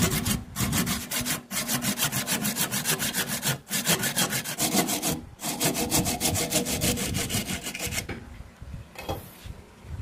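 Hand saw cutting through acacia wood at the base of a turned vase, parting it from the waste block on the lathe chuck. The quick back-and-forth strokes have a few short pauses and stop about eight seconds in, as the piece comes free.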